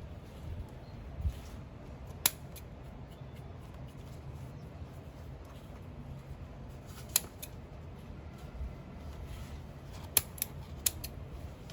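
Coin packaging being handled and opened by hand: a dull knock about a second in, then scattered sharp clicks, with three in quick succession near the end.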